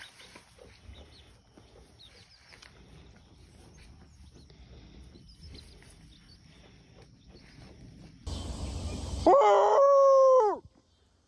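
A bird calls once, loud, with a single held note rich in overtones that rises at the start and drops off at the end, lasting just over a second, near the end.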